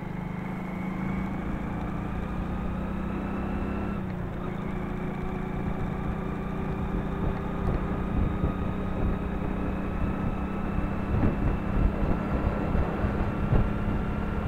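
Motorcycle engine running at highway cruising speed, its pitch rising slowly, with a brief dip about four seconds in. Wind buffets the microphone, growing gustier in the second half.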